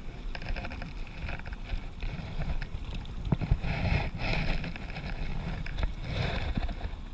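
Irregular water splashing as a hooked brown trout is played and brought in through a small stream, over running water, with wind rumbling on the microphone.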